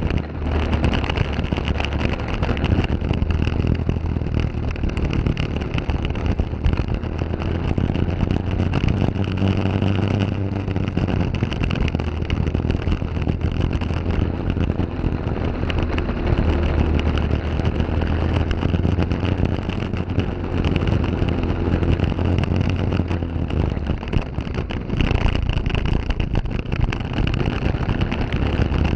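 Briggs & Stratton LO206 kart engine, a single-cylinder four-stroke, running at racing speed, heard on board the kart.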